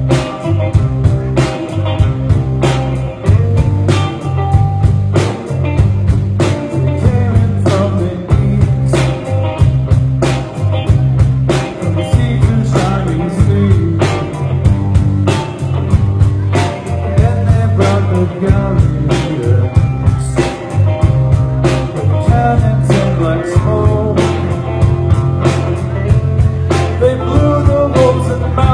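Rock band playing live, with the drums keeping a steady beat under bass and guitar.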